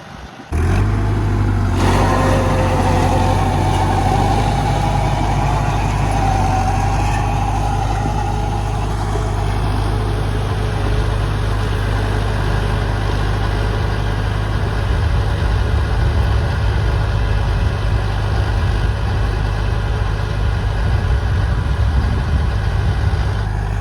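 Indo Farm 3075 4x4 tractor's diesel engine running steadily and loudly, driving a Jagatjit super seeder. The sound begins abruptly about half a second in.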